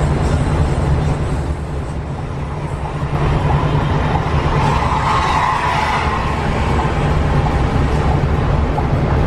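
Coach bus travelling at speed on a highway: a steady low engine drone under road and wind noise, with a swell of brighter noise about five seconds in.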